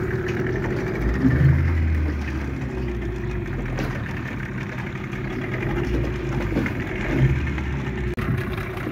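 Fishing boat's engine running steadily, a constant low drone that swells louder briefly about a second and a half in and again near seven seconds.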